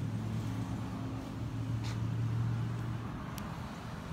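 A steady low machine hum, with a couple of faint clicks.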